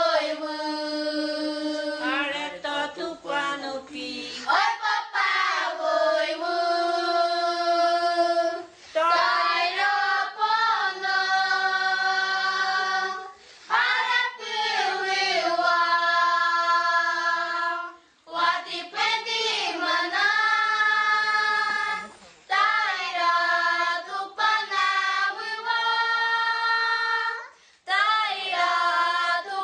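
A group of children and an older woman singing a song together unaccompanied, in unison. The song goes in phrases of about four seconds, each followed by a brief pause for breath.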